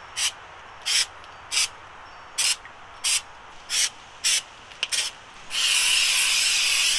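Aerosol can of artificial snow spray hissing in short spurts, about nine of them, then held down for one long continuous spray near the end, frosting a pine wreath.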